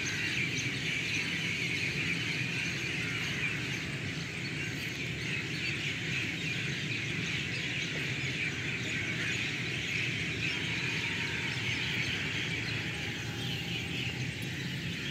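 A dense chorus of many birds chirping at once, continuous and steady, over a low background rumble.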